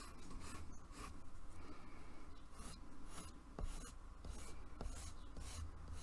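Coloured pencil sketching on paper: quick, irregular scratchy strokes, several a second, as light draft lines are laid down.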